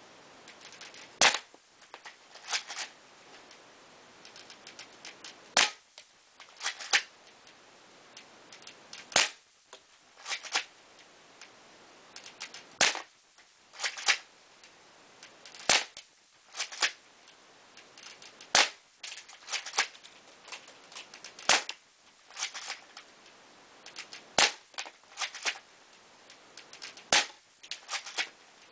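Cybergun Desert Eagle airsoft pistol firing BBs at a CD: about nine sharp snaps, roughly one every three seconds, each followed by a few fainter clicks. The hits leave the disc cracked.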